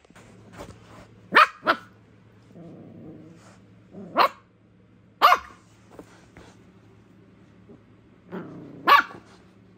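Jack Russell terrier puppy yapping in play, five short high barks, with low growls between them, one running into the last bark near the end.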